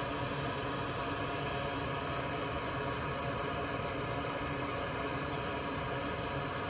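Steady whirring hiss of a small fan or blower, unchanging throughout.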